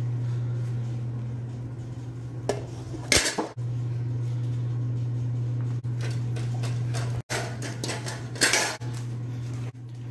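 German Shepherd eating from a stainless steel bowl in a raised metal stand, the bowl clattering sharply about three seconds in and again about eight seconds in, over a steady low hum.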